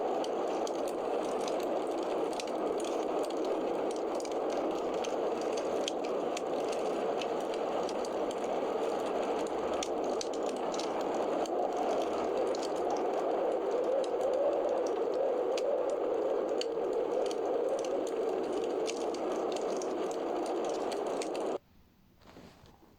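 Wood fire burning in a fireplace: a steady hiss of flames with frequent sharp crackles and pops, cutting off abruptly near the end.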